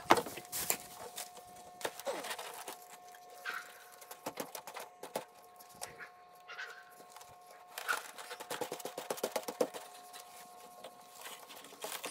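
Handling noise as a rubber seal is worked onto the edge of a skid steer door's glass pane in its cardboard box: scattered rustles, clicks and light knocks, busiest near the end, over a faint steady whine.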